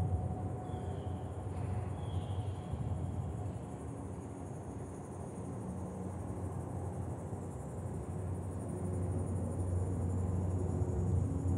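Insects buzzing steadily in pine scrub, a continuous high-pitched sound that grows louder about halfway through, over a low rumble. Two short high chirps sound about one and two seconds in.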